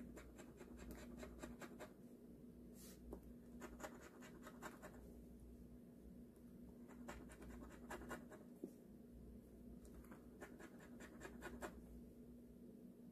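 A coin scratching the coating off a lottery scratch-off ticket, in quick short strokes. The scratching comes in four brief spells with pauses between them.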